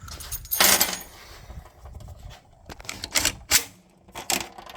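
Handling noise close to the microphone: a brief rustle just over half a second in, then several sharp clicks and knocks spread through the rest.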